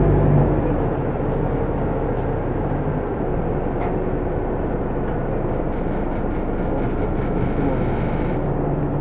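VDL Citea SLFA 180 articulated bus idling at a standstill, its diesel heard as a steady hum and rumble inside the passenger cabin; the deepest part of the rumble eases about a second in.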